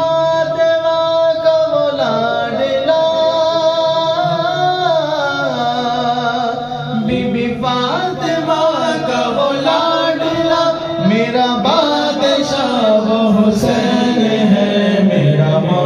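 Two men singing a manqabat, an Urdu devotional song, into microphones, in long drawn-out melodic lines that hold and glide between notes.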